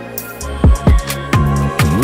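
Background music with a heavy kick-drum beat over a held bass line. The beat drops out briefly at the start and comes back about half a second in.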